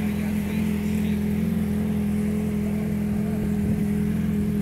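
Motorcycle engine idling steadily, with an even low hum that holds its pitch.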